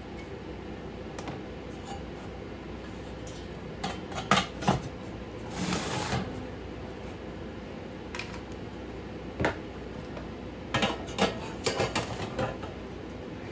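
Scattered light clinks and knocks of thin galvanized metal as a small galvanized can and its lid are handled, with a short scrape about six seconds in. A quick run of clinks comes near the end as the lid comes off.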